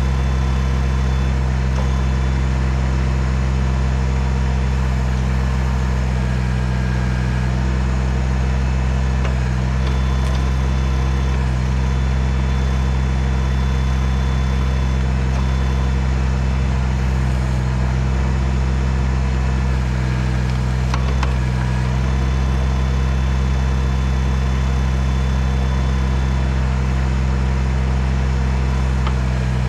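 Kubota BX tractor's three-cylinder diesel engine running steadily, with a faint high whine that comes and goes.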